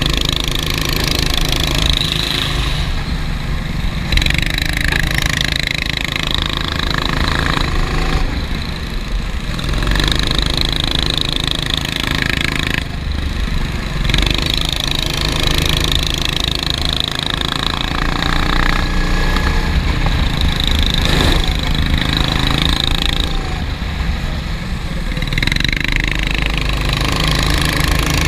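Racing kart engine heard from onboard, running hard lap after lap, its sound swelling and easing every few seconds as the throttle goes on and off through the corners.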